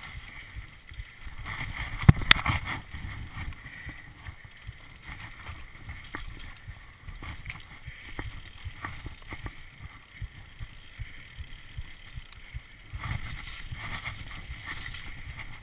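Mountain bike riding fast down a dirt forest trail: a steady rumble of tyres on the ground with constant small rattles and clicks from the bike. About two seconds in, two sharp loud knocks in quick succession.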